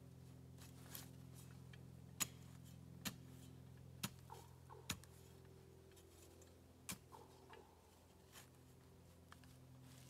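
Near silence over a faint steady hum, broken by a handful of sharp, irregularly spaced clicks, the loudest about two seconds in.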